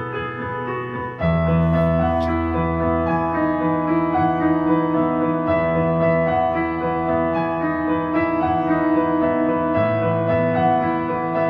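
Background music led by piano, playing held chords; it grows louder about a second in as low bass notes come in.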